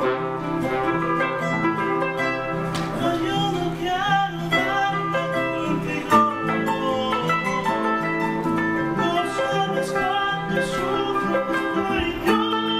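A live acoustic band playing a tune, with plucked guitar-type strings to the fore and a melody line carried over them.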